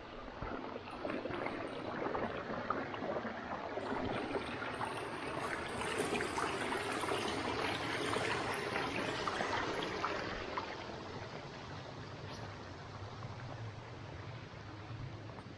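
Small forest brook trickling over rocks, a steady splashing rush that grows louder over the first few seconds, peaks in the middle and then fades.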